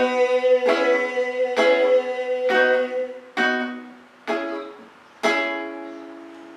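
Acoustic guitar (violão) closing a song with six strummed chords about a second apart. The last chord is left to ring out and die away. A final held sung note fades under the first few strums.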